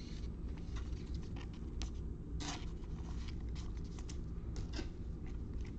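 Trading cards being handled and slid across one another as a pack is sorted through, making irregular short swishes and light ticks over a steady low hum.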